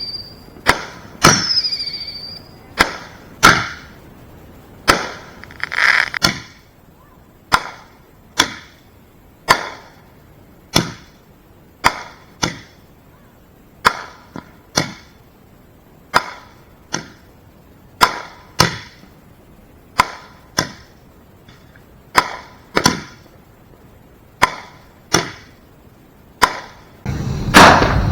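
Backyard consumer firework mortars going off in a rapid series of sharp bangs, roughly one every half-second to second. A couple of falling whistles sound in the first two seconds, and a bigger boom with a lingering rumble comes near the end.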